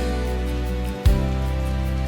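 Instrumental hymn accompaniment between sung lines: sustained chords over a bass line, with a new bass note struck about a second in.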